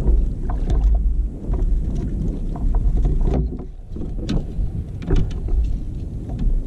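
Low wind rumble on the microphone and water against a kayak hull, with scattered knocks and rattles as a landing net holding a sturgeon is swung up and aboard the kayak.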